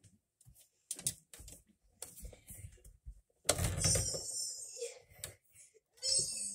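Scattered small clicks and knocks of a person moving on a doorway pull-up bar. About a third of the way from the end comes a louder, noisy rush lasting about a second as he swings down to hang by his hands, and a shorter burst follows near the end.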